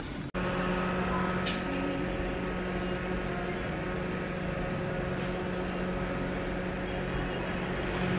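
A steady machine hum made of several even tones, cutting in abruptly just after the start and holding level throughout.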